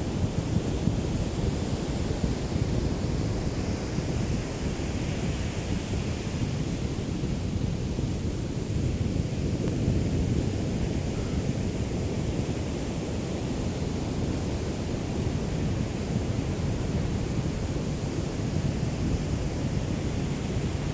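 Calm sea with small waves lapping on the shore, a steady wash of water sound, with a low wind rumble on the microphone from a light breeze.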